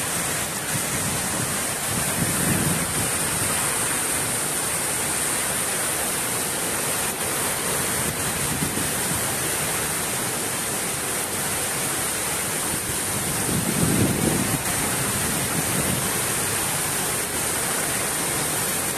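Heavy monsoon rain falling steadily, a dense hiss, with two brief low swells about two and a half seconds in and again about fourteen seconds in.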